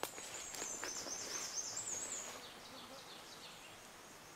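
A small songbird singing a rapid, high-pitched jumble of notes for about two and a half seconds, trailing off softly. Footsteps and brush rustling underneath.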